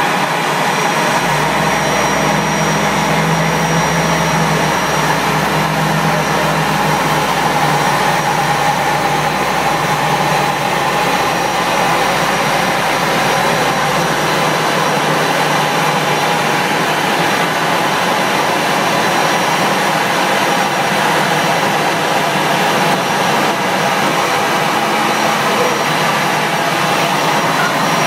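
Airbus A340-300 jet engines running steadily and loudly, with a thin high whine on top. A low hum underneath stops about halfway through.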